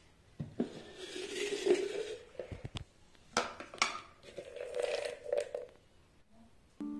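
A lidded plastic food tub being handled: scraping and rubbing as it is picked up, sharp clicks as the snap-on lid comes off, then more scraping as the open tub with a few loose peanuts in it is tilted.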